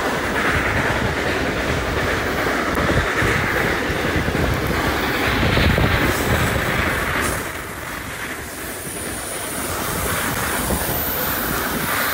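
Steam-hauled train running, heard from a carriage window: wheels rattling over the rails with a high squeal in the first half and again near the end. The noise dips for a couple of seconds past the middle.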